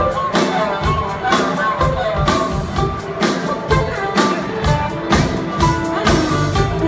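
A live string band plays amplified music, with acoustic guitar over a drum kit keeping a steady beat of about two hits a second.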